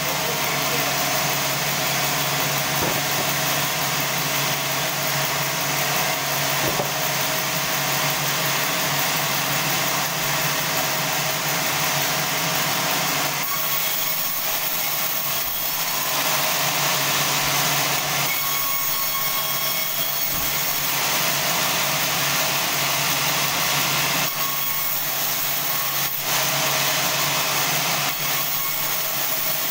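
Sawmill band saw running and cutting through a large log: a steady, loud mechanical noise over a motor hum, its character shifting a few times as the cut goes on.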